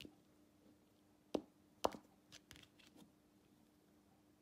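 Plastic toy animal figures being moved by hand on a plastic tablecloth: two sharp clicks about a second and a half in, then a few faint ticks, over a faint steady hum.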